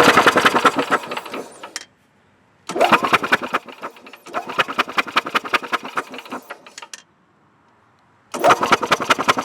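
Yamaha G22 golf cart's single-cylinder four-stroke engine cranking over on its starter without firing, in three bursts with short pauses between them. The spark plug is out of the head and grounded to the engine for a spark test, so the engine cannot catch.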